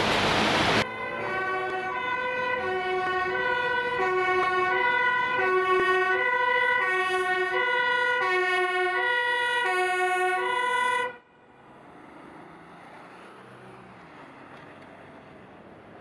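A two-tone siren alternating steadily between a low and a high note, each held under a second, cutting off suddenly about eleven seconds in. It is preceded by a second of loud traffic noise and followed by a quieter hiss.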